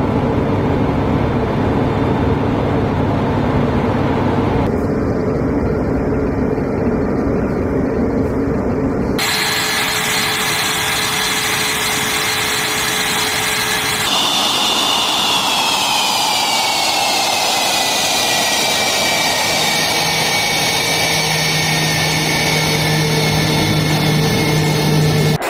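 Su-35S fighter jet engines running on the ground: a loud, steady jet roar with a high turbine whine, in several spliced clips whose tone changes abruptly. In the last part the whine falls in pitch over a few seconds, then holds steady.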